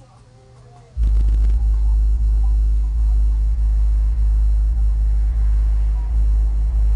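Deep, steady bass of music, very loud, kicking in suddenly about a second in, with a few faint higher steady tones above it.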